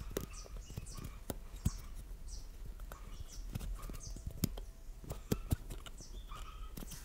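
Needle-nose pliers gripping and turning a Schrader valve core in a car tire's valve stem: a string of sharp metal clicks and ticks, with short high squeaks between them.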